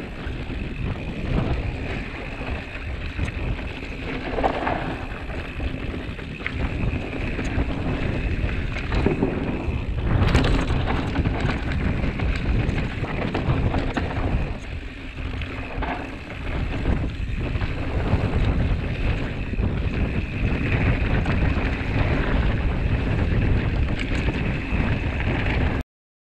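Mountain bike descending a dry, stony dirt trail at speed: wind buffeting the action-camera microphone over the rolling of knobby tyres on gravel, with occasional knocks and rattles from the bike over bumps. The sound cuts off suddenly near the end.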